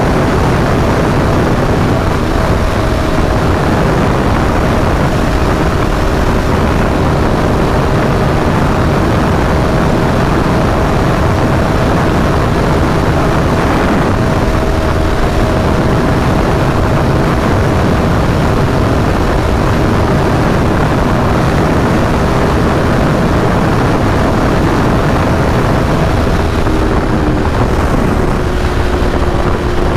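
Aprilia Tuono V4 1100's V4 engine running at high speed at near-constant revs, under heavy wind rush. The engine note drops slightly near the end.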